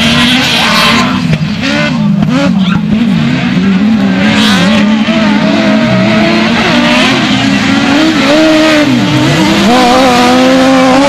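Several autocross race cars' engines revving hard on a dirt track. Loud, with the engine notes rising and falling over and over as the drivers work the throttle and change gear, more than one engine heard at once.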